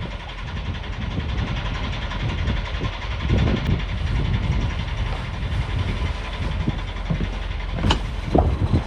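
A steel barge's engine running steadily at low speed while manoeuvring, with a few sharp knocks near the end.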